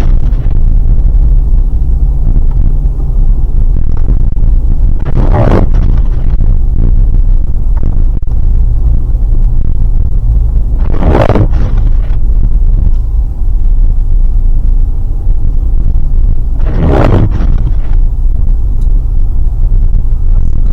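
Car driving slowly on snowy roads, heard from inside the cabin: a loud steady low road-and-engine rumble, with a brief swish about every six seconds.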